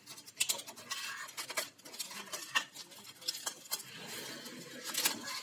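Irregular clicks and light clatter of small hard parts and tools being handled while an air-conditioner indoor unit is worked on.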